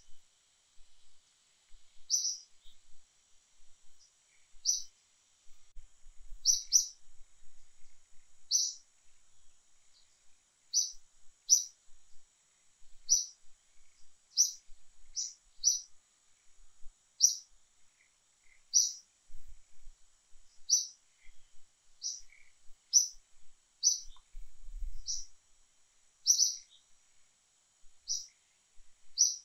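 A bird's short, high chirps, one every second or two and sometimes two in quick succession.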